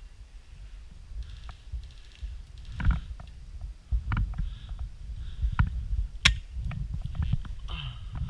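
A low, steady rumble on the microphone, broken by a few sharp clicks or snaps; the sharpest comes about six seconds in.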